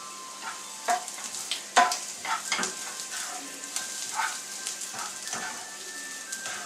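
Chopped onions with fennel and sesame seeds frying and sizzling in oil in a nonstick pan. A slotted spatula stirs them, scraping the pan every second or so, sharpest about two seconds in.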